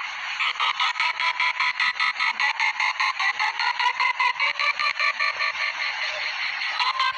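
A sneeze sound digitally looped and sped up into a rapid, even stutter of about seven pulses a second, with a buzzing, croak-like quality.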